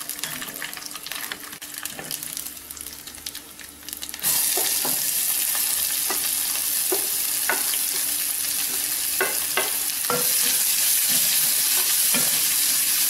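Hot oil sizzling with tempering seeds in a clay pot. About four seconds in, chopped onions go into the oil and the frying sizzle jumps suddenly louder and holds steady while a wooden spatula stirs them, with occasional short clicks.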